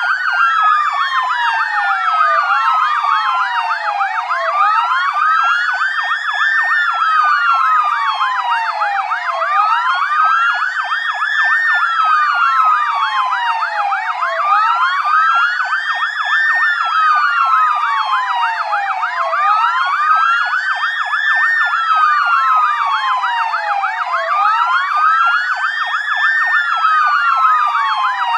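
Police siren sound effect: overlapping wails rise and fall in pitch about every five seconds over a fast, continuous pulsing tone.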